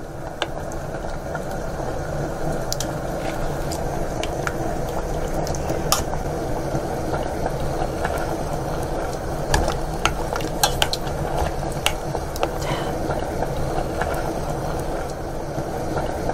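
Pot of broth bubbling steadily near the boil as mussels are scraped in from a bowl, building up over the first couple of seconds. Scattered light clicks and knocks of the spoon and bowl against the steel pot.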